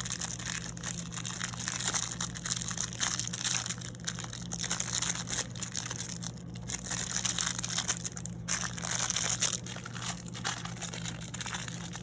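Plastic packaging crinkling and crackling irregularly as a mini figure is unwrapped and taken out, over a steady low hum.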